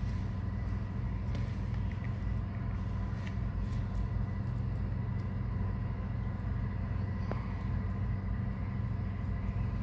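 A steady low hum of a running motor, with a few faint light clicks.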